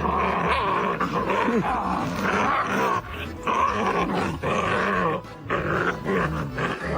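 A dog vocalizing in a run of drawn-out growls and groans that bend in pitch, breaking off and starting again.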